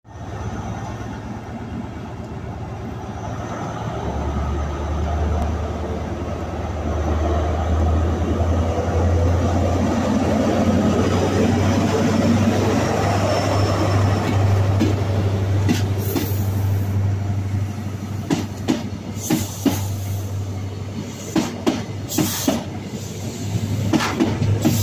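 Diesel engine of an InterCity 125 (Class 43) power car pulling away and passing close by, its low steady note growing louder after about four seconds. From about two-thirds of the way through, the carriages' wheels clack sharply and irregularly over the rail joints as they roll past.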